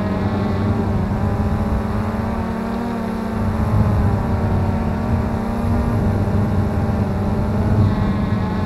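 Cheerson CX-20 quadcopter's brushless motors and propellers running steadily, heard up close through the camera slung beneath it, the whine wavering slightly in pitch as the motors adjust speed.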